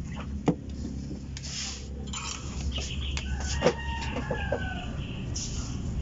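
A chicken calling in the background, a drawn-out, slightly falling call a little past the middle, with two sharp clicks from wires and tools being handled on the bench.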